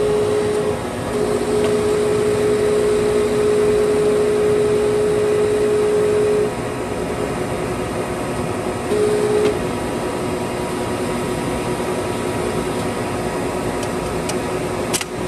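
Warner & Swasey 5A saddle turret lathe running: a steady machine hum with a strong whine that stops about six and a half seconds in, leaving a lower, steady running hum. A short click near the end.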